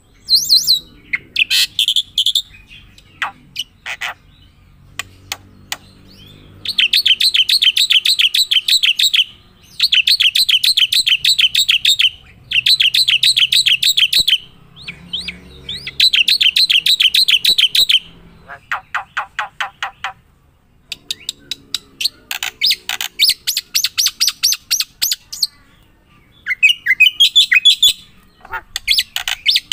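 A bird singing: bouts of rapid, high-pitched trills a few seconds long, broken by short pauses and scattered single chirps.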